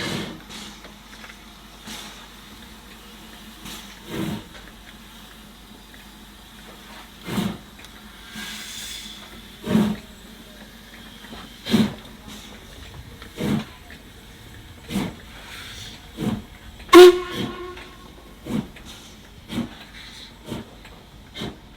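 LMS Stanier Black 5 steam locomotive pulling away from a standstill: slow, separate chuffs from the chimney that come steadily closer together as it gets the train moving, with steam hissing between them. About three-quarters of the way through comes one sharper, louder beat carrying a brief tone.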